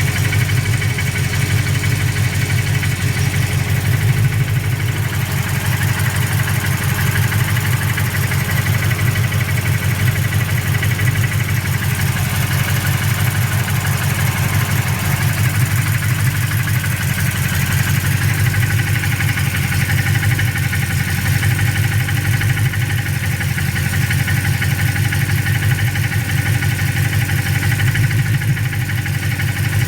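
A freshly built engine idling steadily with a rapid, regular pulse and a knocking sound from the new build.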